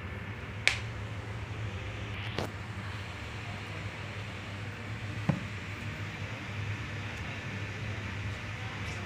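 A steady low hum with three short sharp clicks: one under a second in (the loudest), one about two and a half seconds in, and one after five seconds.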